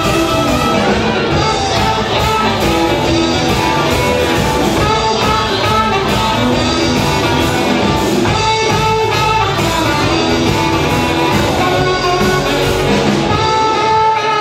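Live rock band playing amplified electric guitars and drums, with held lead notes over the dense accompaniment.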